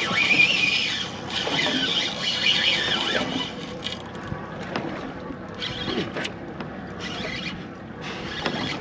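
Fishing reel's drag squealing as a big amberjack pulls line off against it. The squeal is strongest through the first few seconds, then comes back in shorter, weaker spells.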